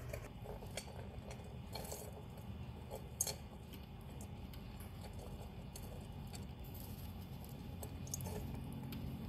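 Faint scattered clicks and light rustling from dwarf hamsters moving about in wood-shaving bedding, over a low steady background hum; one sharper click about three seconds in.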